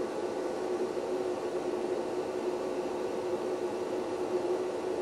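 Kool Glide induction carpet seaming tool running, a steady hum with one constant tone over a hiss, as it heats the seaming tape under a carpet patch to bond it.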